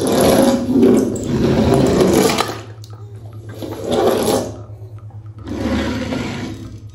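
Rushing, splashing water coming in three surges, over a steady low hum.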